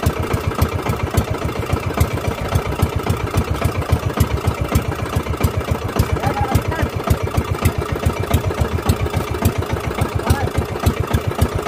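A small outrigger fishing boat's engine running steadily under way, a fast, even chugging beat.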